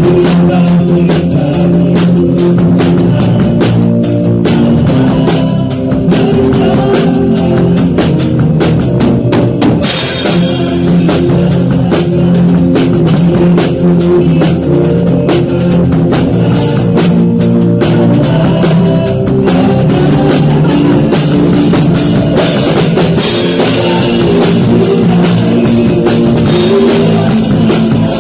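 Live praise-and-worship band playing a song, led by an acoustic drum kit with keyboard, electric guitar and bass guitar. About ten seconds in, the cymbals get louder and bright cymbal wash carries on over the beat.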